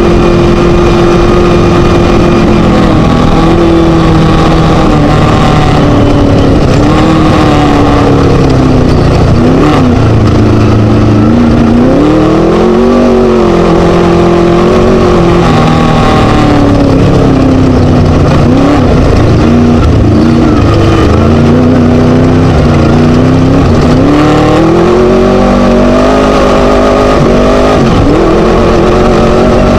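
Class 1 desert race buggy's Scat V4 engine running loud and hard, its revs climbing and dropping again and again, over a constant noisy rush.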